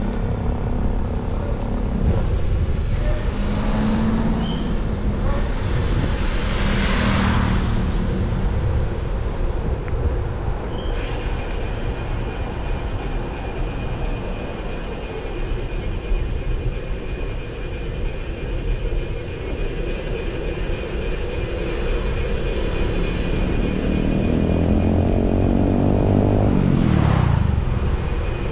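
Street traffic heard from a moving bicycle: a steady low wind rumble on the microphone under passing road traffic. A vehicle's engine rises and falls in pitch as it goes by near the end.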